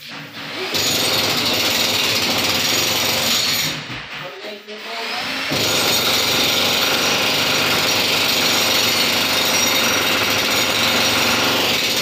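Loud, steady power-tool noise that cuts out briefly about four seconds in and starts again about a second and a half later.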